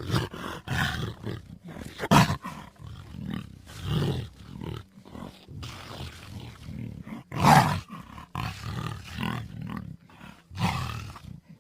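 Designed creature sound effects for the dinosaur Eoabelisaurus: a string of short, throaty calls with brief gaps between them, the loudest about two seconds in and again about seven and a half seconds in.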